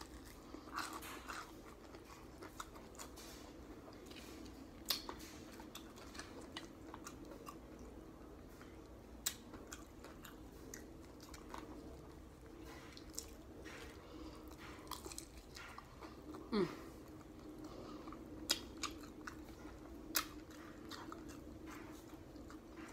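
Close-up chewing and biting of crispy fried chicken: scattered crunches and wet mouth clicks, with a handful of louder crunches spread through.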